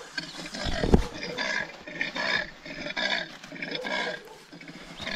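An animal calling over and over in the dark, a harsh call roughly every three-quarters of a second, with a deep thud about a second in.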